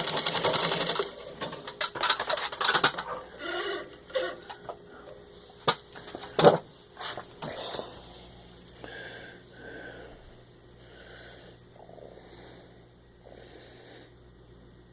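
Wheeler & Wilson No. 9 treadle sewing machine stitching at full speed for about a second, then stopping. Scattered clicks and knocks follow, the loudest about six and a half seconds in, then only faint soft sounds.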